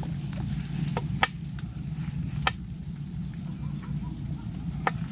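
Four sharp clacks, spaced irregularly, over a low steady hum, from hands digging among the rocks of a mud crab burrow.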